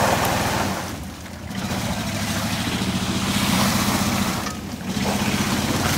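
GMC Yukon's engine running hard under throttle as its wheels spin in deep mud, with the hiss and splatter of mud and water thrown up behind. The engine dips twice, about a second in and again near five seconds, then picks back up.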